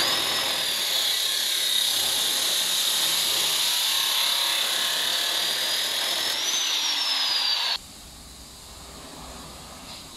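Abrasive cut-off chop saw cutting through steel exhaust pipe: a loud grinding hiss under a high motor whine that wavers slowly in pitch. It cuts off suddenly about eight seconds in, leaving a much quieter background.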